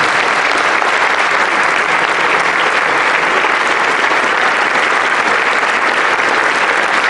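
Audience applauding, a steady dense clapping that stays at an even level.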